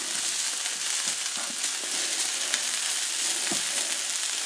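Sliced beef and onions sizzling steadily on a hot griddle, with a few light clicks of metal tongs against the griddle as buns are set down to toast.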